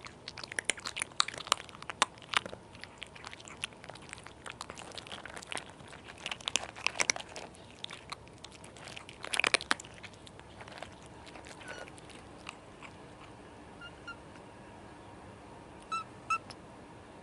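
Kittens crunching dry cat food kibble close to the microphone: a dense run of crisp crunches and clicks for about the first ten seconds, then only scattered ones. Two short high chirps near the end.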